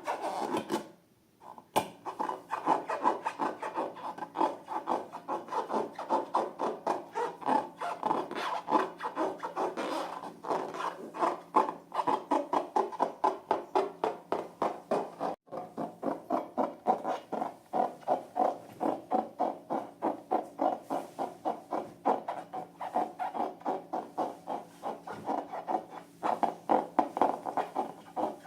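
Hands rubbing and squishing slime in quick, rhythmic strokes, about three to four a second, with a short pause about a second in.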